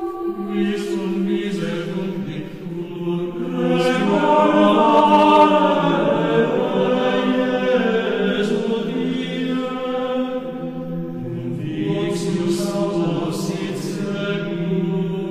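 Background music: slow vocal chant, voices holding long notes that change pitch only every few seconds.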